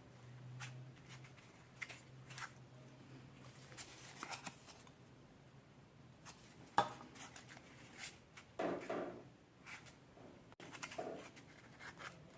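Faint handling sounds of craft work with a bottle cap and EVA foam: scattered clicks, taps and scratches. The sharpest click comes about seven seconds in.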